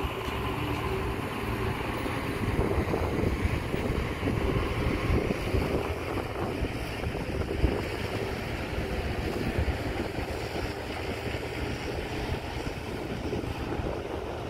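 Diesel engines of a dump truck and a Caterpillar excavator running steadily, with wind buffeting the microphone. A single brief knock comes about seven and a half seconds in.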